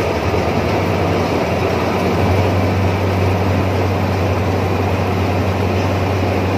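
Iseki rice combine harvester's diesel engine running steadily while the machine crawls on its tracks through deep mud, a loud low hum over a dense mechanical clatter. The hum grows slightly louder about two seconds in.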